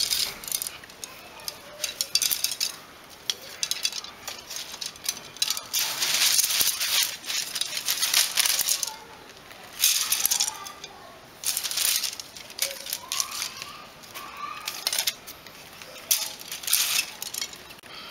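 Thin bamboo sticks clicking and rattling against one another while plastic wire rasps and crackles as it is pulled through and wound around them, in bursts of handling with short pauses between.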